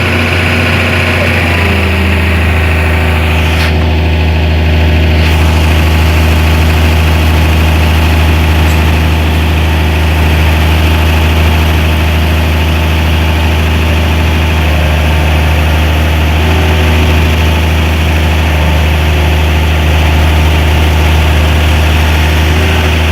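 Diesel engine of a piece of heavy equipment running steadily with a loud low hum, its pitch shifting slightly about a second and a half in.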